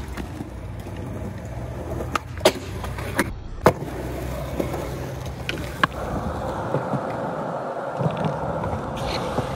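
Skateboard wheels rolling on concrete, with several sharp clacks of the board striking around two to four seconds in. A last clack comes just before six seconds, followed by a steady rolling noise that stops near the end, as the board rolls away on its own after a bail.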